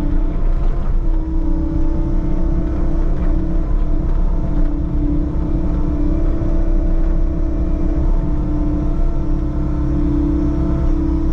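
Diesel engine of a compact earthmoving machine running steadily while grading dirt, with a constant hum over a low drone.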